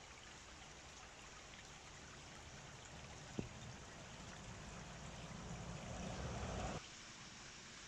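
Shallow stream trickling faintly over stones. About halfway through, a short click is heard, and a low rumble builds up and then cuts off suddenly near the end.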